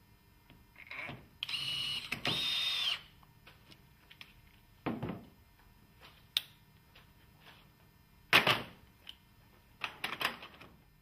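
Cordless screwdriver running in two short bursts, driving in the fixing screws of a window handle. Then several sharp plastic clicks and snaps as the handle's cover rosette is pressed home and the handle is turned. The loudest snap comes about eight seconds in.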